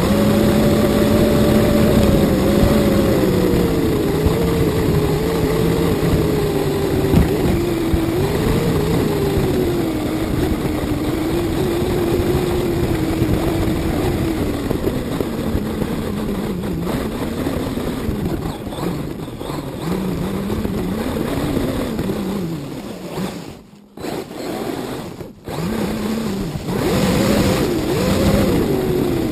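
Drivetrain of a 1:10 RC car heard from an onboard camera as it drives over grass: a motor note that rises and falls with the throttle over a steady rush of tyre and chassis noise. The sound cuts out briefly twice near the end.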